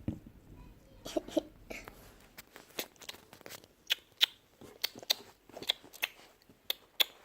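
Small plastic toys being handled and set down, making scattered light clicks and taps at an irregular pace.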